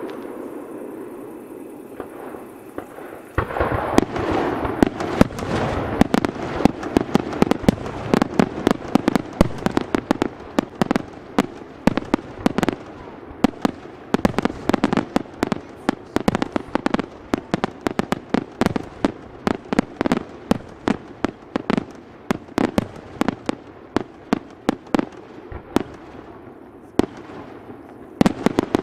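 Fireworks display: a fading rumble from an earlier burst, then from about three and a half seconds in a dense run of sharp bangs, several a second, as aerial shells burst overhead.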